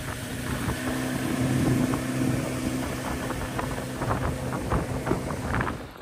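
Tiller-steered outboard motor running at speed across the water, its steady drone mixed with wind buffeting the microphone. A few short knocks come in the second half.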